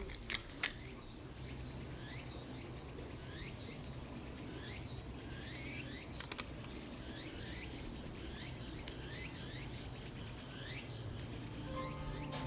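Outdoor ambience full of short chirping animal calls, each sliding in pitch, repeating about every half second to a second over faint high buzzing. A few sharp clicks come near the start and about six seconds in.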